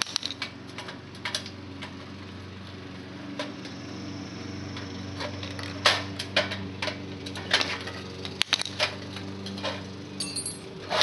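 Irregular small clicks and clinks of metal and glass as parts are worked loose from a dismantled electric heater, over a steady low hum.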